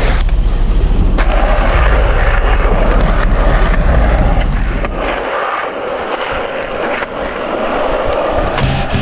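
Skateboard wheels rolling over a concrete skatepark surface, a loud rough rumble that eases about halfway through.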